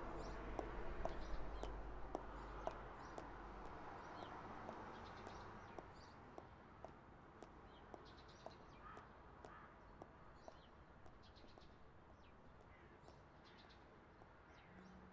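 Small birds chirping over a low outdoor hum, with footsteps tapping on pavement about twice a second as someone walks away, the steps fading out. A low rumble over the first few seconds dies away.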